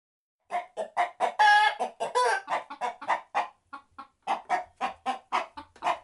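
Chicken clucking: a rapid run of short clucks, about four a second, broken by a couple of longer, drawn-out squawks about a second and two seconds in.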